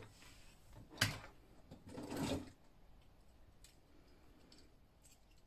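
Plastic action figures being handled on a tabletop: a sharp knock about a second in, a short rustling clatter about two seconds in, then faint handling.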